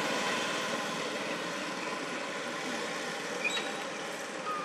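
Steady outdoor background noise with no clear single source, and two faint short high chirps, one about three and a half seconds in and another about a second later.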